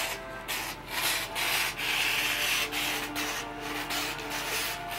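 Wrapping paper rustling and crinkling in a run of swishes as presents are wrapped by hand, loudest about two seconds in.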